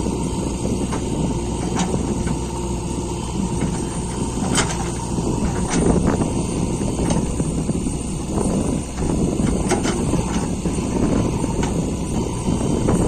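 Diesel engine of a JCB 3DX backhoe loader running steadily under work, with a few sharp metallic clanks.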